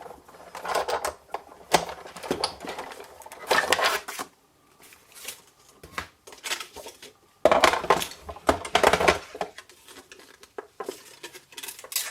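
Craft supplies being handled on a desk: metal dies, cutting plates and card set down, slid and shuffled, giving irregular taps, clicks and rustles. A louder stretch of clatter comes about two-thirds of the way through.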